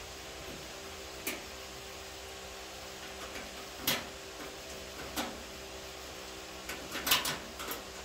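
Scattered sharp metallic clicks and knocks of hand tools and bolts as inner fender bolts are fitted, the loudest cluster about seven seconds in, over a steady low hum.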